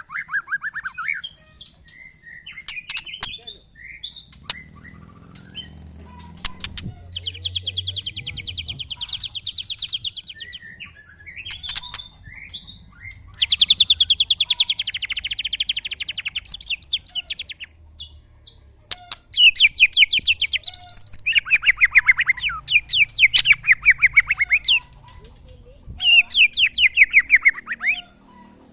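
Several caged white-rumped shamas (murai batu) singing against each other. They give bursts of rapid trills and loud whistled phrases, some sweeping downward in pitch, with short gaps between the bursts.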